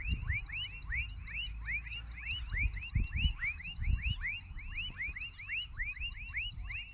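A chorus of many short, upward-sweeping chirping calls from several animals in tropical forest, several a second and overlapping, with a few low thumps underneath.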